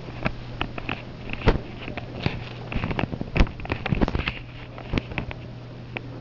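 Footsteps of a person walking on a hard, polished hallway floor: sharp heel strikes about once a second with lighter clicks between, over a steady low hum.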